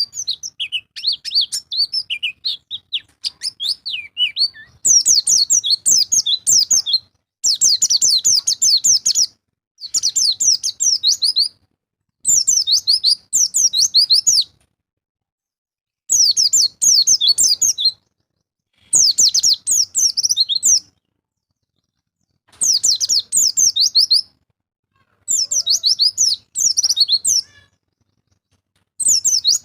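White-eye (pleci) song: a few seconds of varied twittering, then fast high-pitched twittering phrases about two seconds long, repeated about every three seconds with short silences between.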